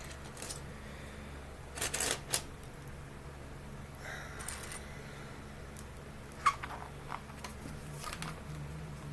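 Small LEGO plastic pieces being handled and snapped together: scattered light clicks and brief rattles, the sharpest about six and a half seconds in, over a steady low hum.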